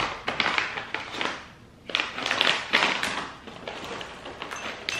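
A stiff foil-lined snack bag crinkling loudly in two long bursts as it is handled. Near the end, lighter scattered taps as toffee-coated peanuts spill out of it into a ceramic bowl.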